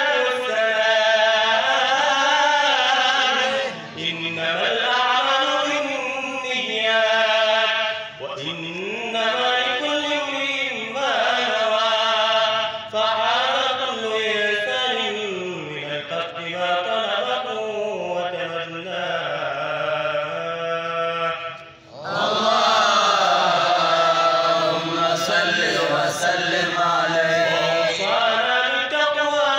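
A solo man's voice chanting a religious recitation into a microphone. It is slow and melodic, with long held notes that bend and ornament in pitch, and it pauses for breath about 4, 8 and 22 seconds in.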